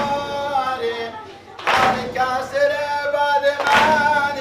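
Group of men chanting a Muharram mourning lament in unison with long held notes, and all beating their chests together twice, about two seconds apart, in sineh-zani.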